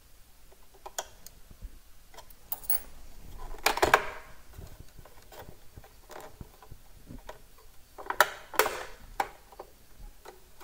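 Plastic cover plate of a Singer M1000 sewing machine being pried at by fingers: scattered small plastic clicks and ticks, with two louder scraping rattles about four and eight seconds in.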